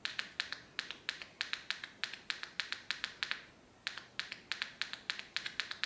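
A tweeter clicking as a 1.5 V AA battery is tapped across its terminals: a rapid run of sharp, high clicks, about five a second, with a short break about halfway through. The clicks show the tweeter is not open circuit and is working.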